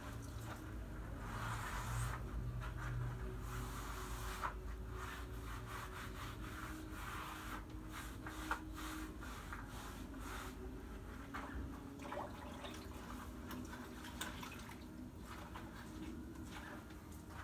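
Gloved hands rubbing grout across a mosaic of tiles, a string of repeated scrubbing and scraping strokes.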